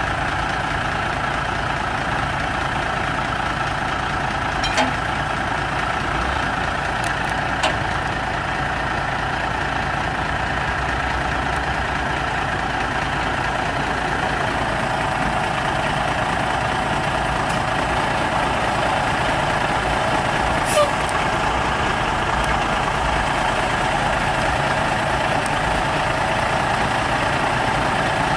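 Semi truck's diesel engine idling steadily, with a few light clicks over the top.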